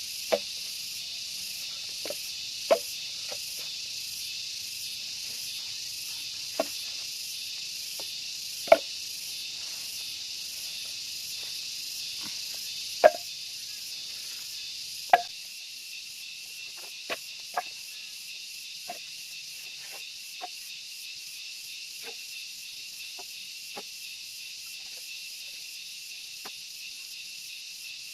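Steady high-pitched chorus of insects, with irregular sharp knocks of firewood being handled and tied into a bundle. The loudest knocks come about 9, 13 and 15 seconds in, and they thin out and get fainter after that.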